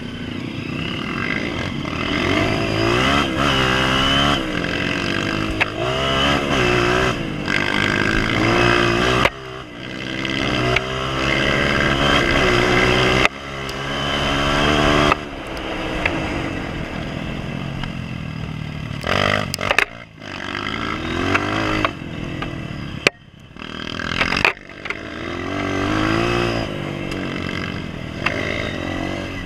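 Honda CRF230F single-cylinder four-stroke trail bike engine under way on a dirt track. It rises in pitch under throttle, then falls away again several times as the rider shifts and backs off. Sharp clatters and knocks come from the bike over bumps in the second half.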